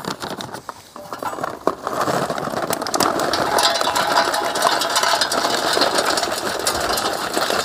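A few clicks and knocks, then about two seconds in a small engine starts running steadily at an even pace.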